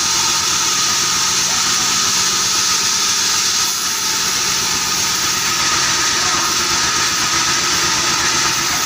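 Sawmill band saw machinery running steadily: a loud, constant drone with a strong hiss.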